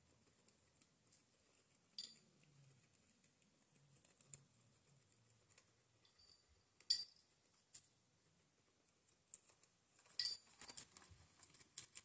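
Guinea pigs eating lettuce and dry food: faint chewing and rustling, with scattered sharp clicks and clinks, several close together near the end.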